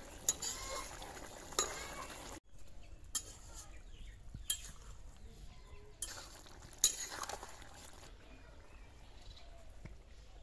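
Metal spatula clinking and scraping against a metal kadai while stirring a simmering curry: about six sharp clinks over the first seven seconds, the loudest about two thirds in, then quieter.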